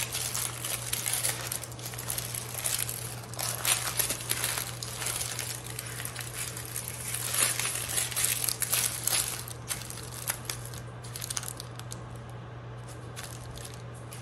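Parchment paper crinkling and rustling as it is rolled and pressed tightly around a log of ground doner kebab meat, in irregular bursts that thin out over the last couple of seconds.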